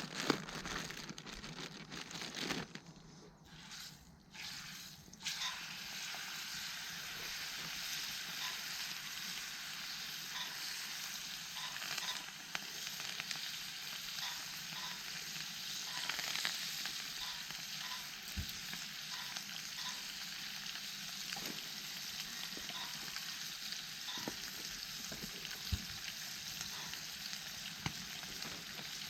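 Food frying in a pan over a campfire: a steady sizzle with scattered small pops. It settles in about five seconds in, after a few irregular knocks and rustles.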